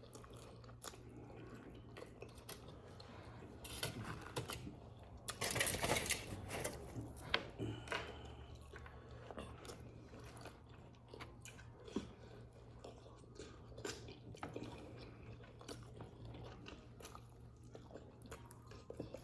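Close-miked chewing and eating: soft wet mouth sounds and small clicks of someone eating goat meat with rice and beans, with a louder stretch of chewing about six seconds in. A faint steady low hum runs underneath.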